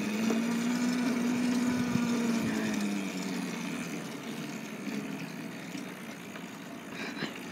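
Electric drive motor of a Razor dirt bike whining under way: a steady low hum that lifts slightly, then sinks and fades about three seconds in as the bike slows. The bike is so slow because its battery is running down.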